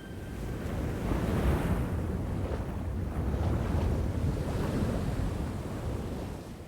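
Ocean waves: a rushing wash of surf that swells about a second in and fades away near the end.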